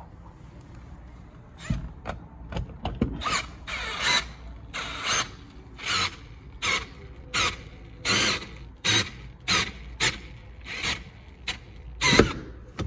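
Windshield cut-out line sawing through the glass's urethane bead in regular strokes, each a short squeal, about one and a half a second, starting about two seconds in. This is the old windshield being cut loose from the body.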